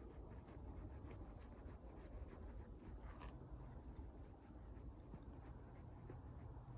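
Bonfire crackling faintly, with scattered small sharp pops and ticks over a low rumble.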